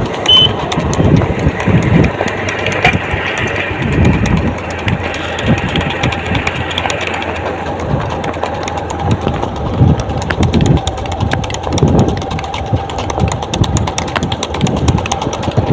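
A Sindhi horse's hoofbeats thudding on the ground, low deep beats about once a second, over the steady hum of a running vehicle engine.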